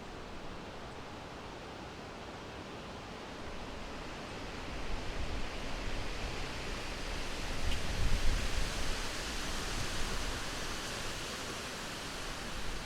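Wind blowing through a forest, a steady rushing rustle that builds about a third of the way in into a stronger gust with a low rumble near the middle, then eases a little.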